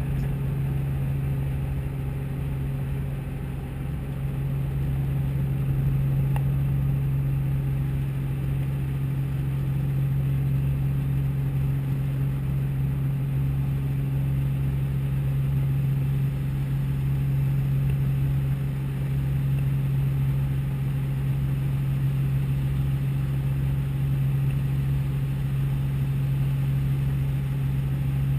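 Robinson R44 helicopter's engine and rotors running at flight power, heard inside the cockpit: a steady drone over a low, pulsing rotor throb. It gets a little louder about five seconds in as the helicopter climbs away from the runway.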